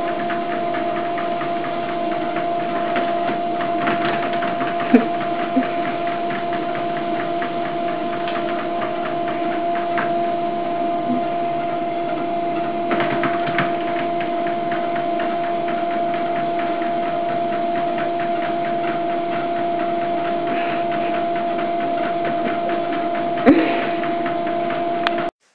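Treadmill motor and belt running at a steady speed: a constant hum with a held whine over a hiss, with scattered light taps and a sharper knock near the end.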